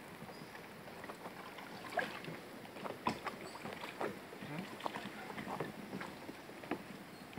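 Kayak paddles splashing in shallow water and knocking now and then against plastic sit-on-top kayak hulls, in irregular short splashes and clacks, with faint voices.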